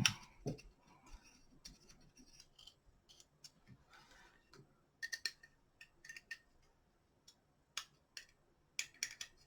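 Faint, irregular small metal clicks and light taps as the aluminium halves of a Midwest Industries quad rail and its screws are handled and the screws are started by hand. The clicks come in a few quick clusters about halfway through and again near the end.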